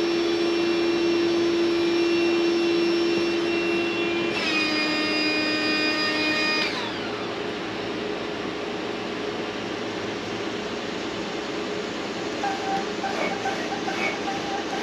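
Electric air pump inflating an inflatable tent, running with a steady, pitched motor hum that shifts slightly lower a little past four seconds in. It is switched off and winds down about seven seconds in, leaving a steady rushing noise with faint clicks near the end. It is a high-volume inflator that, in the owner's words, blows pretty good but doesn't give enough PSI.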